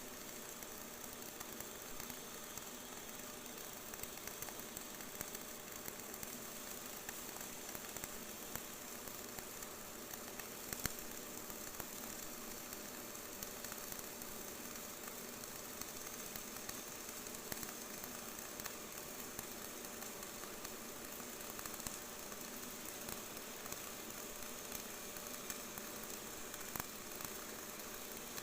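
Electric arc welding: a steady, faint sizzling crackle with scattered small pops.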